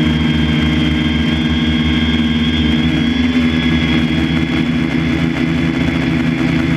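A motor running steadily: a low, layered hum with a thin high whine over it, the hum's pitch shifting slightly about three seconds in.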